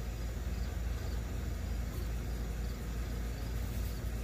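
Steady low rumbling background noise, with faint repeated chirps of crickets above it.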